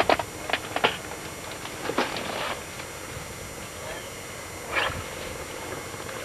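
A dog's short yelps: a faint one about two seconds in and a louder one near five seconds, after a few light knocks at the start.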